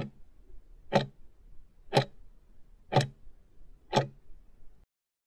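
Clock-like tick sound effect of a countdown timer, five ticks once a second, marking the last seconds running out on a timed test question.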